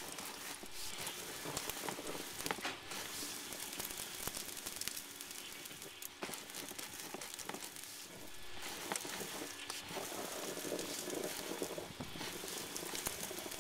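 Loose cellulose insulation being blown through a dense-pack fill tube into a wall cavity: a steady rushing hiss with many small crackling ticks as the fibre streams through the tube.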